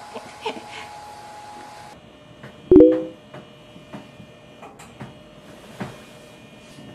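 Electric hospital bed's motor whirring steadily as the bed is adjusted with its hand remote, starting about two seconds in. A brief loud pitched sound comes just under three seconds in.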